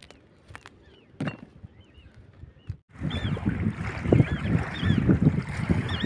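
Small waves lapping on a gravel reservoir shore, with wind buffeting the microphone, starting suddenly about three seconds in. Before it only faint short bird chirps and a few light clicks.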